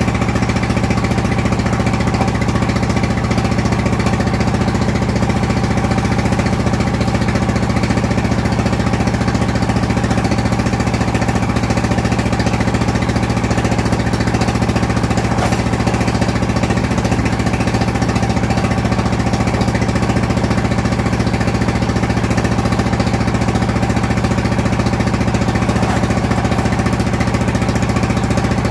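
Engine-driven clay brick-moulding machine running with a steady, unchanging drone.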